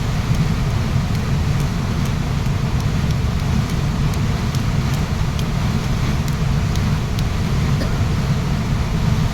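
Waterfall rushing loudly and steadily, the sound heaviest in its low rumble, with faint scattered ticks of spray or droplets above it.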